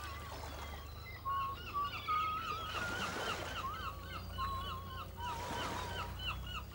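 A whistled tune: quick runs of short, high notes, many with little upward or downward slides, repeated several times a second, over a steady low hum.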